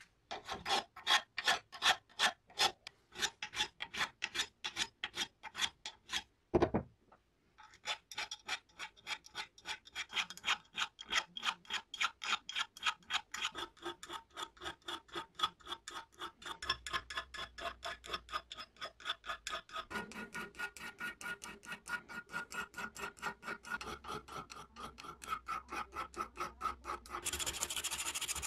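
A hand file rasping back and forth across a cast metal grinder part clamped in a bench vise, in steady strokes of about three a second. After a short pause about seven seconds in, the strokes come quicker. Near the end it changes to a denser, continuous scratching of sandpaper rubbed over the filed metal.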